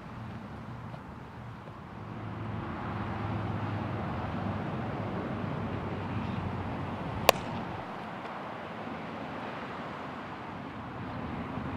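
A baseball smacks once into a first baseman's leather glove about seven seconds in, a single sharp pop. Under it runs a steady low outdoor rumble that grows louder about two seconds in.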